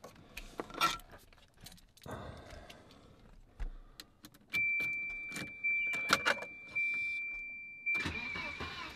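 Car keys jangling and clicking at the ignition of a '93 Volvo 940, then a steady high-pitched tone from about halfway through. Near the end the starter begins cranking the 2.3-litre four-cylinder engine with the fuel pump fuse pulled, so it turns over without firing for a compression test.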